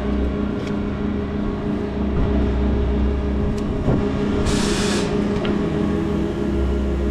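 Steady low hum of a running motor, with a deeper rumble that comes and goes. About four and a half seconds in there is a brief hiss lasting about half a second.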